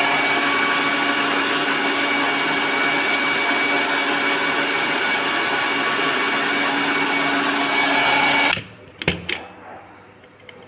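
Electric mixer grinder running at full speed, blending pomelo segments and water into juice: a loud, steady whine with several fixed tones that cuts off suddenly about eight and a half seconds in. A few short clicks and knocks follow.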